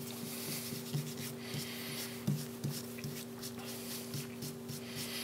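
Gloved fingertips rubbing quickly back and forth over a glass-backed kangaroo leather strop, working in a thin coat of emulsion: a run of soft, short rubbing strokes over a steady hum.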